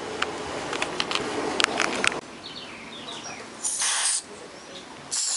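A few sharp clicks of small plastic parts being handled, then a half-second hiss of aerosol contact cleaner sprayed through its red extension straw into the radio's stuck selector switch, with a second spray burst starting near the end.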